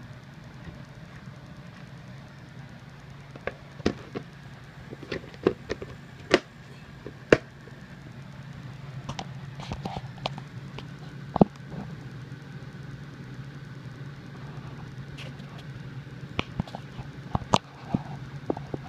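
Handling noise around a plastic snake tub and its aspen shavings: scattered sharp taps and clicks, several in quick succession in places, over a steady low hum.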